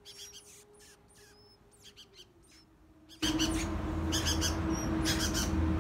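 Rescued songbirds giving repeated short, high chirps, the calls of hungry birds. About three seconds in, a steady low hum comes in and the chirping grows more frequent.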